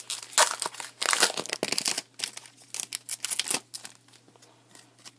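Wrapper of a pack of baseball cards being torn open and crinkled by hand: a dense run of crackling for the first two seconds, then a few lighter crinkles that die away about three and a half seconds in.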